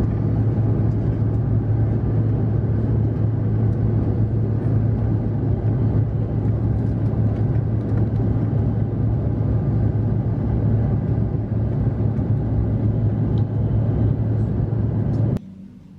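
Steady drone of aircraft engines and rushing air, heard inside the cabin of a small regional airliner in flight, with a strong low hum. It cuts off suddenly near the end.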